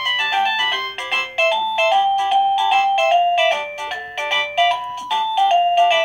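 Govee wireless doorbell's plug-in chime receiver playing one of its built-in ringtone melodies: a quick electronic tune of short notes, several a second.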